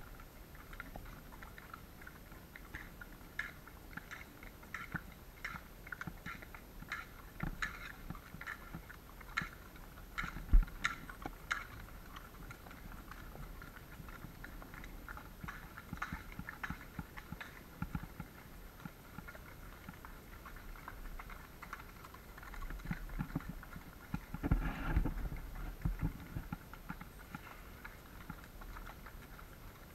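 A horse munching its feed: a run of irregular crunching clicks, busiest in the first dozen seconds, with a single heavy thump about ten seconds in and a few low knocks near the end.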